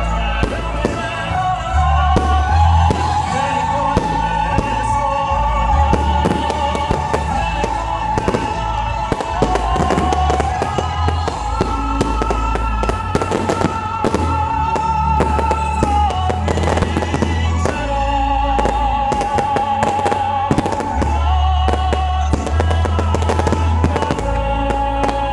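Fireworks display: aerial shells and firecrackers going off in many sharp bangs and crackles, laid over a loud musical soundtrack with a heavy bass and a held, wavering melody line.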